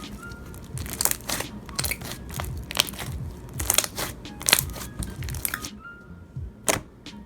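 Slime with star add-ons being squeezed and poked by hand, giving irregular crisp crunching pops and clicks, several a second, fewer near the end.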